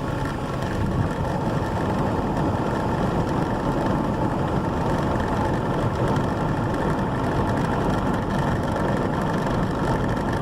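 Steady road and engine noise inside a car cruising on a highway, with the camera's holder rattling against the dashboard.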